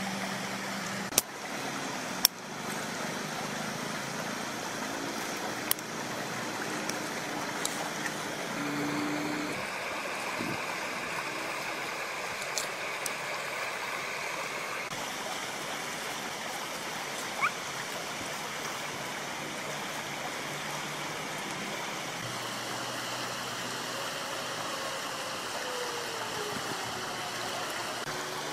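Steady rushing of a river flowing close by, with a few sharp snaps or knocks in the first several seconds.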